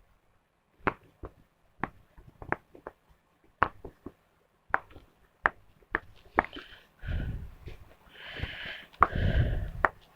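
Bubbles of a silicone Among Us pop-it fidget toy being pressed down one at a time, a dozen or so sharp pops at an uneven pace. From about seven seconds in, louder rough scuffing noise with a low rumble comes in between the pops.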